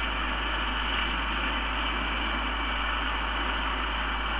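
Steady engine noise: an even, unbroken rush with no change in pitch or level.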